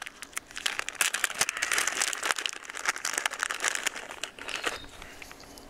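Plastic zip bag of cinnamon sticks crinkling as it is handled and opened, with many small crackles and clicks, easing off near the end.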